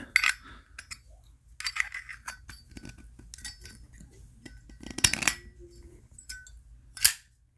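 Small metallic clicks and clinks of Zippo lighters being handled, with a denser rattle about five seconds in and one sharp, loud click about seven seconds in.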